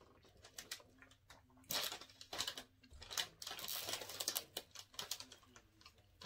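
Foil chip bag crinkling in irregular bursts as it is grabbed and moved across the table, mixed with close-miked chewing and mouth clicks.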